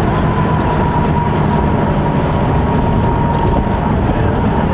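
Steady road and engine noise inside a car's cabin at highway speed: a loud, even rumble with a faint steady whine above it.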